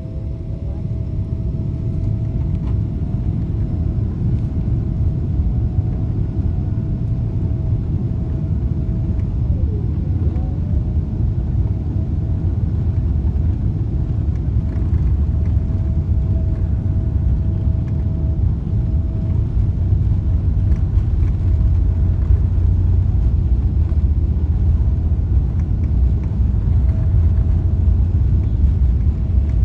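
Cabin noise of a Boeing 777-300ER rolling on the runway, heard from a window seat over the wing: a deep rumble from its GE90-115B engines and wheels that grows steadily louder, with a faint steady whine above it.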